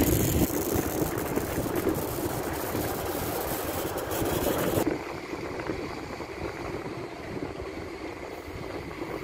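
Diesel engine of a hydraulic excavator running steadily while it swings a loaded bucket over a dump truck, with nearby dump-truck engines also running. A brighter hiss over the engine sound drops away sharply about five seconds in.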